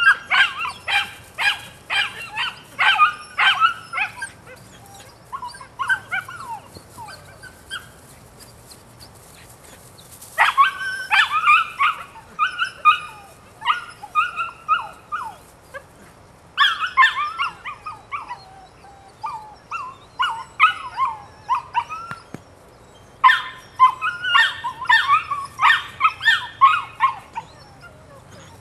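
Nine-week-old Belgian Malinois puppy yapping and yipping in rapid, high-pitched barks, excited while chasing and grabbing at a rag. The barking comes in several bouts separated by pauses of a few seconds.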